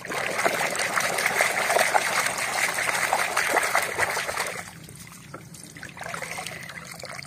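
Water splashing and churning as a hand scrubs a muddy toy car under water in a plastic basin. The splashing dies down about four and a half seconds in, when the toy is lifted out of the water.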